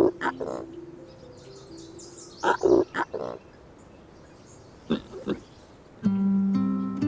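Short animal calls in a few quick bursts, with faint high chirps, over soft background music. About six seconds in, louder plucked guitar music comes in.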